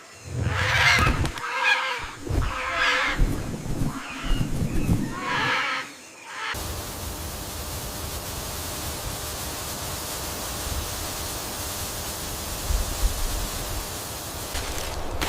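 Harsh, screeching bird calls, about five in quick succession, then a steady even hiss like wind, with a few clicks near the end.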